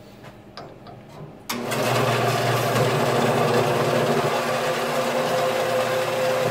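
A few faint clicks, then a vertical bandsaw starts about a second and a half in and runs steadily with a hum, its blade cutting through brass bar stock.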